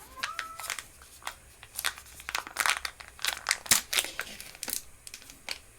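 Plastic snack packaging crinkling and crackling as it is handled, in a rapid string of short sharp crackles.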